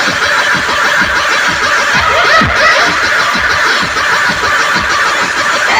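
Large DJ sound system playing a sound-check track at high volume: a dense wash of sound with many short, repeated falling pitch sweeps.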